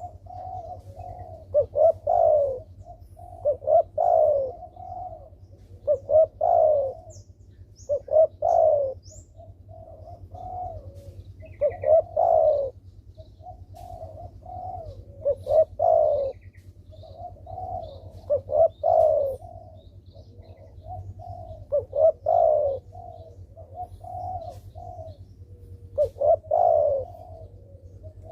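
Spotted dove cooing over and over, one phrase about every two seconds, over a low steady hum.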